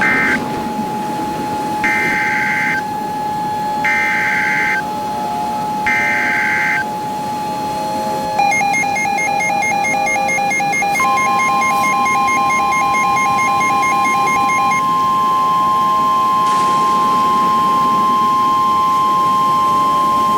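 Emergency Alert System SAME header data bursts: three short screeching tone bursts about two seconds apart. They are followed by a rapid pulsing electronic beep and then the steady single-pitch weather radio alert tone, which holds about ten seconds before cutting off near the end. A steady lower tone hums underneath throughout. This is the alert lead-in to a new warning broadcast.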